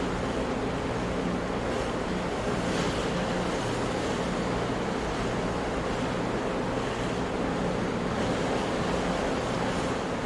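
Big ocean waves breaking on rocks: a continuous, even wash of surf at a steady level, with no single crash standing out.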